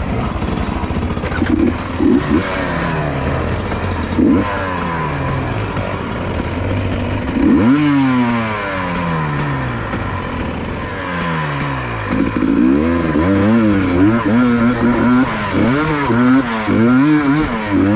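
Two-stroke engine of a GasGas EC250 enduro motorcycle running under load on a dirt trail, its pitch rising and falling with the throttle. A hard rev comes about halfway through, and near the end the throttle is worked on and off in quick short blips.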